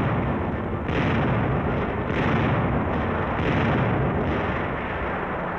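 Skysweeper 75 mm radar-controlled automatic anti-aircraft gun firing repeatedly, one heavy shot about every second, each running into the next over a continuous rumble.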